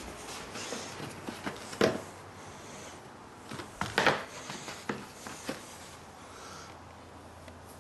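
Scattered light clicks and knocks of hands handling a dirt bike's parts, with the sharpest clicks about two and four seconds in.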